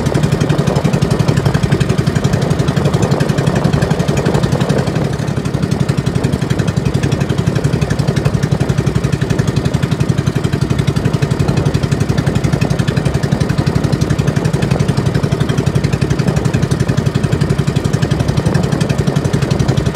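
Small engine of an outrigger fishing boat (bangka) running steadily under way, with a fast, even pulsing beat.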